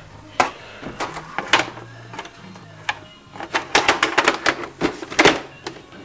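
Irregular knocks, clicks and light clatter of objects being handled and moved about. They are busiest between about three and a half and four and a half seconds in, with a sharp knock a little after five seconds.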